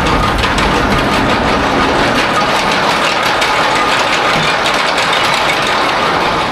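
Suspended roller coaster in motion: loud rush of wind over the microphone with the rumble of the coaster train running along the track.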